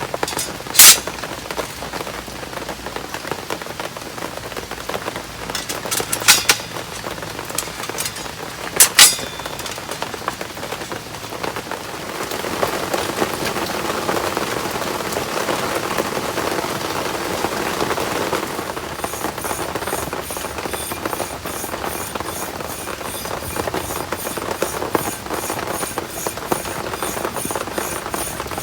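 Heavy rain falling steadily. A few sharp, loud knocks come in the first nine seconds, and the rain grows louder partway through. Near the end an even high ticking, about two a second, joins in.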